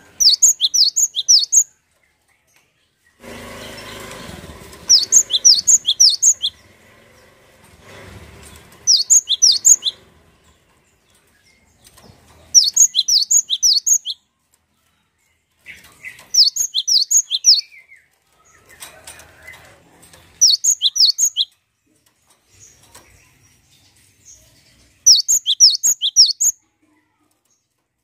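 Cinereous tit (gelatik batu) calling in about seven separate bursts of rapid, high chirping notes, each burst a second or two long with pauses between. A broad rustling noise runs underneath from about three to eight seconds in.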